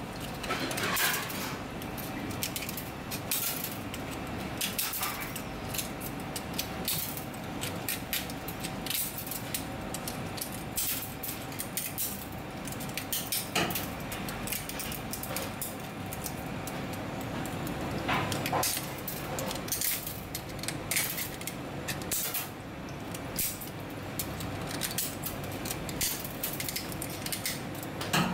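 Steel kitchen shears snipping and crunching through hard barnacle shells: sharp, irregular clicks and cracks with a light metallic clatter.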